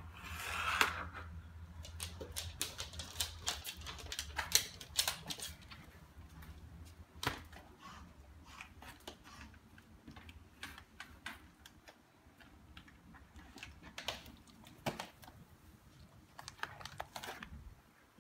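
A dog mouthing and carrying a stiff paper mailer: a run of sharp clicks and crinkles, dense for the first five seconds or so, then scattered single clicks.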